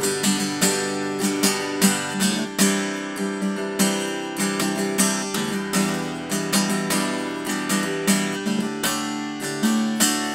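Ibanez PF15ECE laminate-top cutaway acoustic guitar strummed with the fingers in a steady rhythm of chords, its soundhole closed with a plug, so the sound comes from the top and body rather than through the soundhole.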